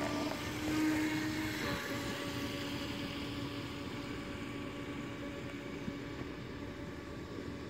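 Rage Black Marlin RC speedboat's motor whining at speed across the water. The steady tone dips slightly in pitch about two seconds in and slowly fades as the boat runs away.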